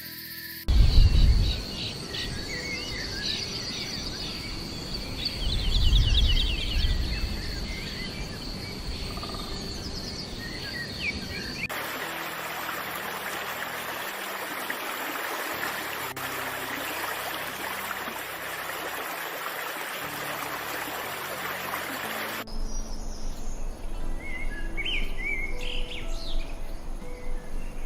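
Wild birds chirping and calling in short rising and falling notes over a steady high-pitched insect drone, with low rumbles about a second in and again around six seconds. Partway through the ambience switches abruptly to an even hiss without calls, then back to bird chirps.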